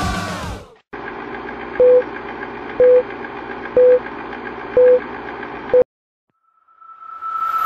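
Film-leader countdown sound effect: five short, even beeps about a second apart over a steady hum and crackle, cutting off suddenly. After a short silence a single high tone swells up near the end. Rock music fades out in the first second.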